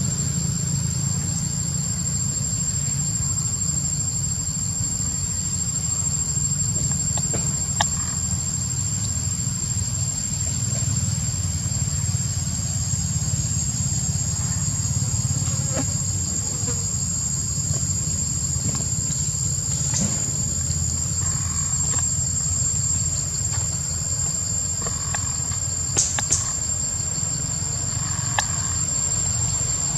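Insects drone steadily in one continuous high tone over a low, steady hum. A few faint clicks and taps sound about a third of the way in and twice near the end.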